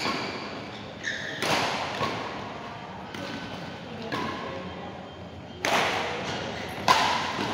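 Badminton rackets striking a shuttlecock during a rally in an echoing hall: four sharp hits at uneven intervals of one to three seconds.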